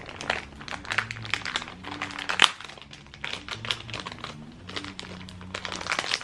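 Crinkly wrapper of a blind-bag pin packet being crumpled and torn open by hand, with steady crackling and one sharp snap about two and a half seconds in.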